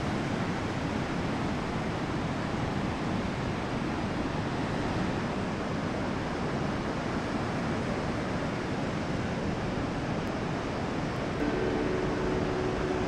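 A steady rushing noise, with held musical tones coming in near the end.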